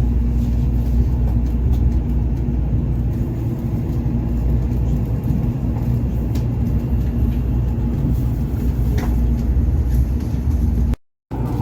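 Steady low rumble of a moving vehicle, with a faint steady hum over it. The sound cuts out briefly near the end.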